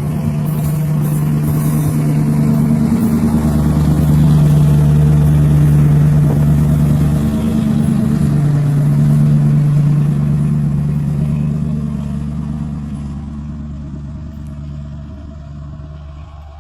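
Diesel engine drone of a KAI CC206 diesel-electric locomotive hauling a passenger train, a steady low hum that swells to its loudest in the middle and then fades away as the train moves off.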